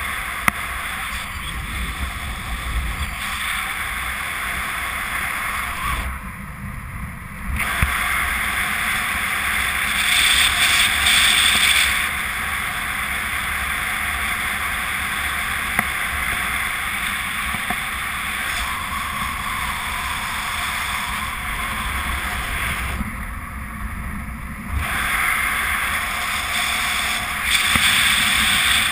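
Wind rushing over the onboard camera's microphone of a speedflyer in flight: a steady hiss that drops away briefly twice and swells louder for a couple of seconds about a third of the way in and again near the end.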